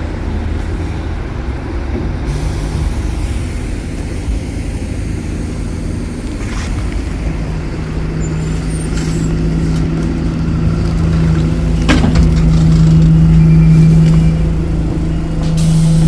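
Onboard sound of an Alexander Dennis Enviro200 Dart single-deck bus: a steady low engine and drivetrain rumble with a held hum that grows louder over several seconds as the bus pulls under load. A brief hiss comes in near the start and a sharp click about two thirds of the way through.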